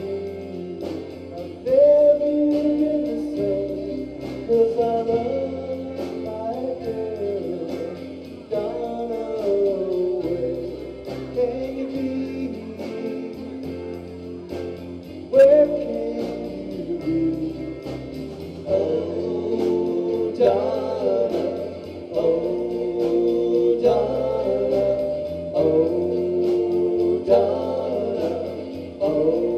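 A live rock band playing a song: electric guitars, electric bass and a drum kit, with a sung vocal line over them.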